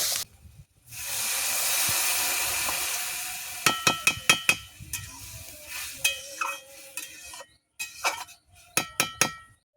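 Water hitting a hot pan of fried egg and potatoes, sizzling loudly for about two and a half seconds. Then a metal spoon strikes the pan in quick runs of ringing clinks as the mixture is stirred.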